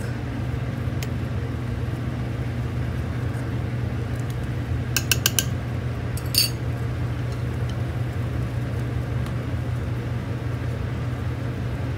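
A quick run of clinks from a spoon knocking against the stainless steel pot as minced garlic is added, about five seconds in, with one more clink about a second later, over a steady low background hum.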